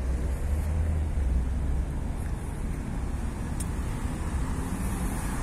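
Road traffic on a multi-lane street: a steady rush of tyres and engines, with a deep rumble that is heavier in the first couple of seconds as vehicles pass.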